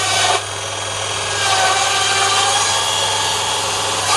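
Table-mounted circular saw ripping lengthwise through a half-round palm log, a steady whining cut over the hum of the saw's motor.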